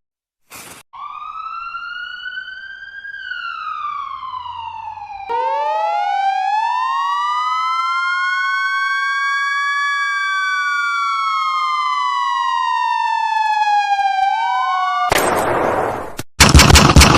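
A siren wailing, its pitch sliding slowly up and down: a short, quieter rise and fall, then from about five seconds in a louder, longer wail of several tones gliding at once. It cuts off near the end, where a loud noisy rattle starts.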